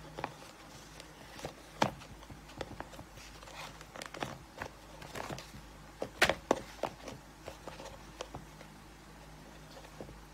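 Handling noise from hands untying the cord bow on a paper-wrapped gift box and sliding the cord off: irregular light taps, scrapes and rustles, with sharper knocks about two seconds in and again around six seconds, over a faint steady hum.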